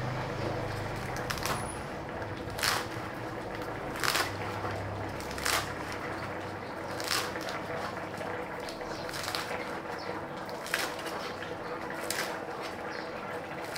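Kitchen knife slicing through a bunch of leafy green herbs and knocking on a cutting board, one sharp stroke roughly every second and a half, about eight in all, over a faint low hum.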